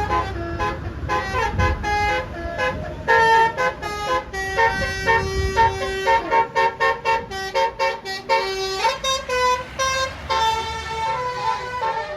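Basuri 'telolet' multi-tone bus horn playing a fast tune of short, quick-changing notes, with one low note held for several seconds in the middle under quicker higher notes. A bus engine's low rumble runs underneath.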